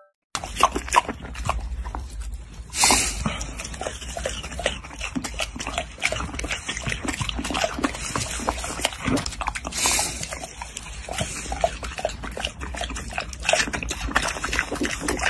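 Piglet snuffling and making small grunts, with two louder snorts: one about three seconds in and one about ten seconds in.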